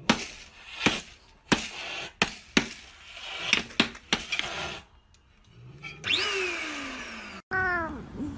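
A cat swatting with its paws at bags and cloth, with about nine sharp slaps and rustles over the first few seconds. Near the end a cat gives drawn-out cries that fall in pitch.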